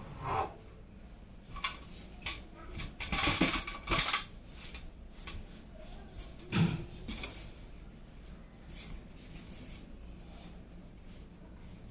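Hands assembling a PC: scattered light clicks and rustles of parts being handled, a spell of rattling clatter around three to four seconds in, and one dull knock about six and a half seconds in.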